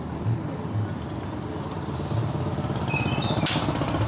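Steel pick clicking and clinking against the piston of a stripped scooter engine as the piston is taken off, with a sharp metallic clink about three and a half seconds in. A motorcycle engine runs steadily in the background.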